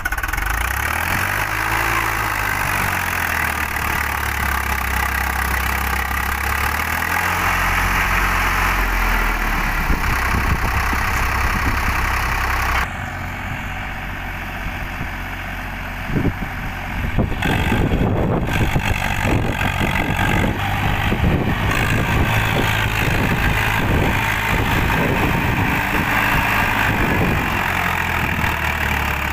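Old Standard tractor's diesel engine running under load as it pulls a loaded trolley through sand, heavy enough that the front wheels lift. The engine note changes suddenly about 13 seconds in, and from about 17 seconds it turns rough and irregular, with knocking thumps over the running engine.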